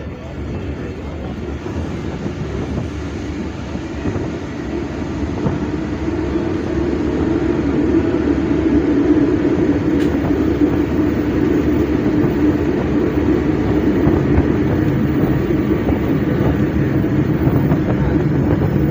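Passenger train coach running at speed, heard from an open door: a continuous rumble and rush of wheels on the track and passing air, with a steady low hum. It grows louder over the first several seconds, then holds steady.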